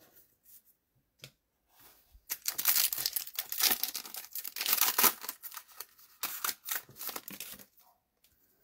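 Trading card pack wrapper being torn open and crumpled by hand: a dense crackling that starts about two seconds in and lasts about five seconds.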